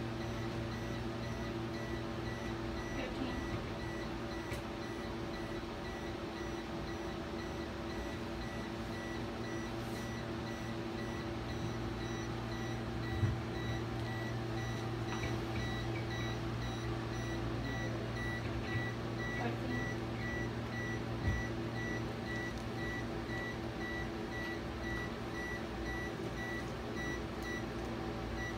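Endovenous laser console sounding its emission tone while the laser fires: a regular stream of short, high beeps over a steady low hum.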